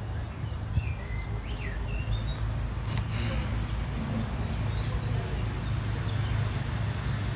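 Small birds chirping in short, sliding calls, several times, over a steady low outdoor hum.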